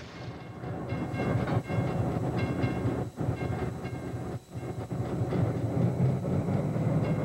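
Diesel switcher locomotive's engine rumbling steadily as it runs slowly toward a grade crossing, with intermittent higher ringing tones above it.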